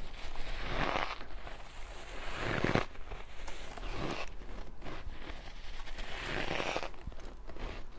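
Big mouthfuls of shaved ice crunched and chewed close up, a crackling crunch that swells and fades in waves every second or two.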